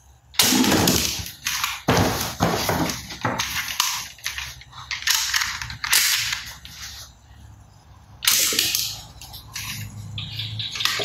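A toy gun making shooting sounds: a string of separate shot sounds, roughly one a second, some louder than others.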